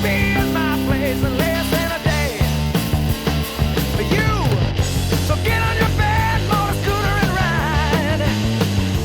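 Hard rock band playing: electric guitar with sliding, wavering, bent notes over bass guitar and drums.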